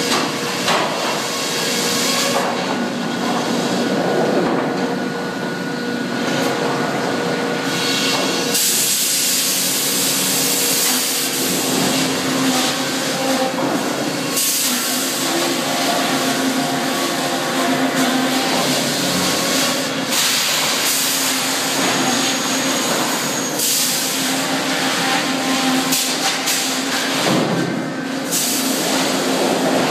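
Sawmill head rig running: the circle headsaw and the shotgun-fed log carriage working with loud, continuous machinery noise, swelling in long stretches of several seconds as the carriage runs logs through the saw.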